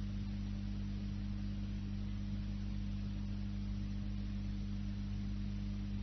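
Steady electrical hum made of several layered pitches over a faint hiss, with no speech: the background noise of the sermon recording.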